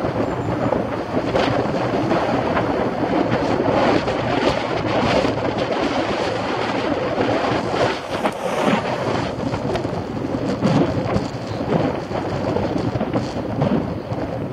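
Wind buffeting a cyclist's action-camera microphone while riding, a steady loud rumble.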